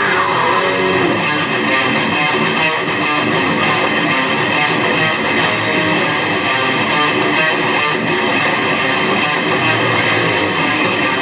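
Distorted electric guitar playing fast death-metal riffs.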